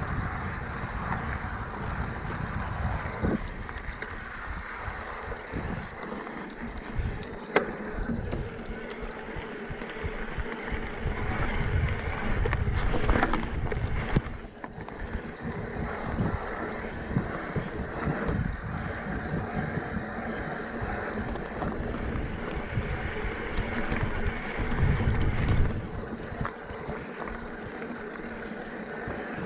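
Electric mountain bike rolling over loose gravel and cinders: steady tyre crunch and rattle of the bike, with wind buffeting the action-camera microphone. There are a few sharp knocks from bumps along the way.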